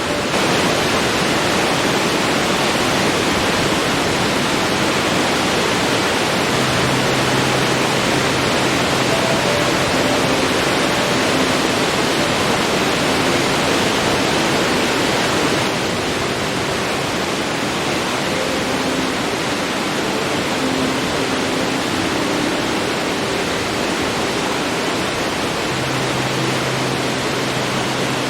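Forest waterfall pouring in a steady rush of falling water, a little softer from about halfway through.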